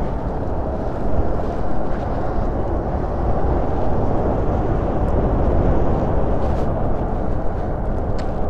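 Wind buffeting the microphone of a camera on a moving Super73 RX electric bike: a steady low rush with no breaks.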